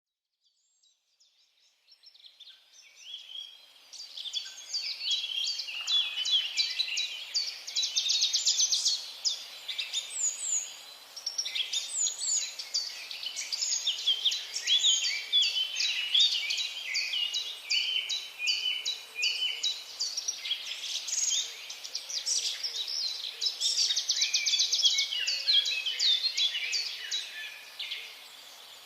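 A chorus of forest birds singing and calling over one another, a dense mix of quick chirps, trills and whistles. It fades in from silence over the first few seconds.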